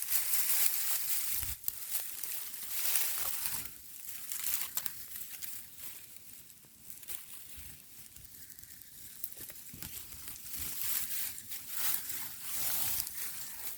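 Gusty wind rustling dry leaves, swelling and fading in waves: strongest at the start, quieter in the middle, and building again toward the end.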